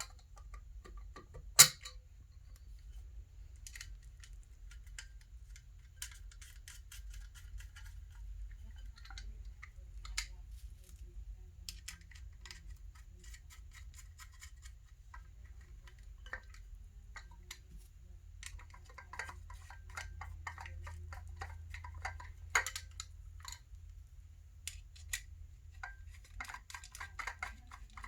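Small bolts and lock nuts clicking and rattling against the wheel sections as they are pushed through the bolt holes and threaded on by hand, in scattered bursts with one sharp click about a second and a half in, over a low steady hum.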